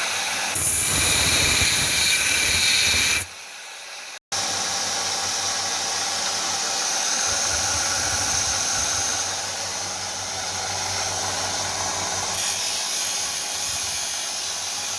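Power grinder running with the chisel's steel held against it to grind a new edge: a steady hissing grind over the motor's hum. The sound drops lower about three seconds in, cuts out for a moment a second later, then runs on steadily.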